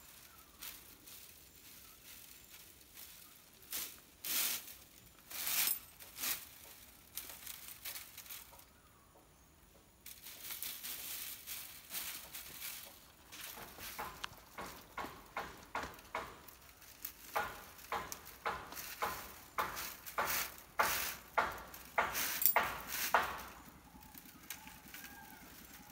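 Bundle of dry coconut-leaf midribs (ekel sticks) rustling and clicking against one another while coir twine is wound and pulled tight around them by hand: short scratchy strokes, scattered at first, then a quicker, steadier run of about two a second in the second half.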